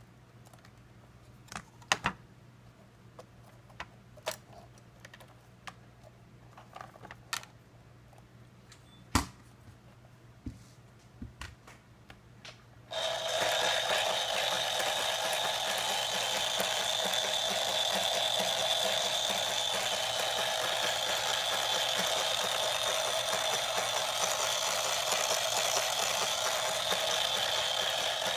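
Scattered light plastic clicks and taps as parts at the front of a 3D-printed Subaru EJ20 boxer engine model are handled. About halfway through, a steady mechanical whirr starts abruptly: the model's small DC electric motor drives the plastic crankshaft and moving parts.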